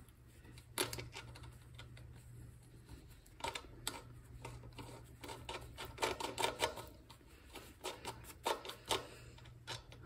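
Light, irregular metallic clicks and ticks from a bicycle freewheel cog cluster being turned by hand onto the threads of an ebike's rear hub motor. A faint steady low hum sits underneath.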